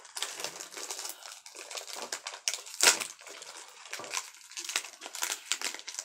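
Plastic candy wrapper crinkling as a lollipop is unwrapped, in irregular crackles with one louder crackle about three seconds in.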